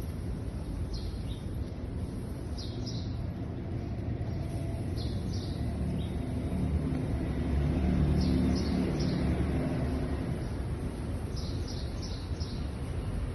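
Birds chirping: short high notes in quick runs of two to four, every few seconds, over a low rumble that swells about midway.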